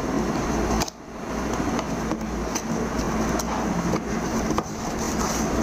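Cardboard mobile phone box handled and knocked against a wooden tabletop: several short taps and knocks at irregular intervals over a steady background hum.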